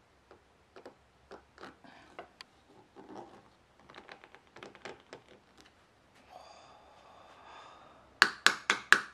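Steel hand tool tapping and scraping on a rust-seized screw head in a wooden plane body, light clicks as the tool slips on the screw, which does not budge. Near the end comes a quick run of about half a dozen sharp, ringing metal-on-metal strikes, about four a second.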